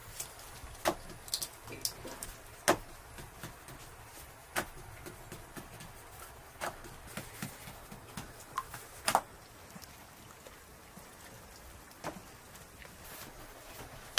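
Eggs being cracked and separated over ceramic bowls: sharp single taps and clinks of eggshell against the bowl rims, about one every two seconds.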